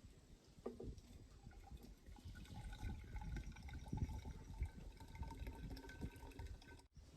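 Liquid being poured into a container, with the ringing tone of the vessel filling; it cuts off suddenly near the end.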